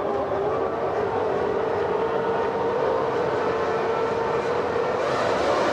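Formula One cars' V10 engines running at steady revs, a sustained drone whose pitch wavers slightly.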